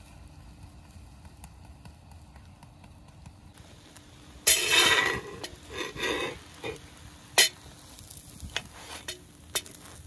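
Kookoo frying in oil on a large steel pan over a wood fire: a low sizzle, then about four and a half seconds in a loud burst of sizzling and scraping as a metal spatula slides under it and turns it over. A sharp tap of metal on the pan follows, then a few lighter clicks.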